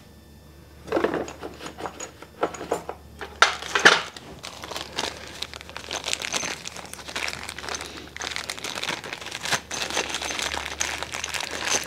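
Plastic parts bag crinkling and crackling as it is handled and opened to get bolts out, a dense run of small irregular rustles and clicks starting about a second in.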